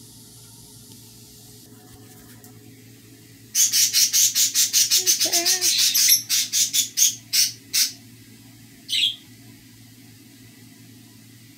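A bird chirping: a fast run of sharp, high chirps, about five a second, that slows and stops after about four seconds, followed by one more chirp about a second later.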